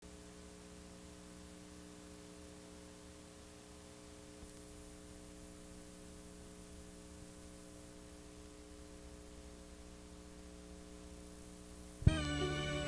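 Steady electrical mains hum with a faint hiss from the blank lead-in of a videotape transfer. About twelve seconds in, a sharp click, and music starts.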